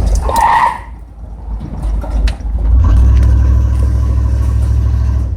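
The 5.7 L V8 of a 1994 GMC Sierra 3500 pickup is running while the truck is driven, a deep steady rumble. It eases off about a second in and builds back up strongly near the three-second mark. A brief high-pitched tone sounds about half a second in.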